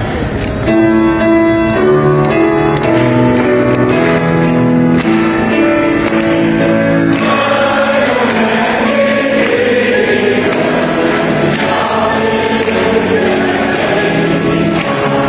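A large choir and congregation singing a Mandarin hymn together. Through the first seven seconds or so long notes are held, then the many voices come in more fully on the following lines.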